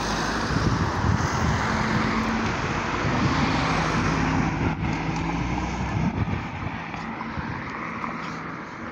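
Road traffic going by: a motor vehicle passes close, its engine hum fading away over the last few seconds.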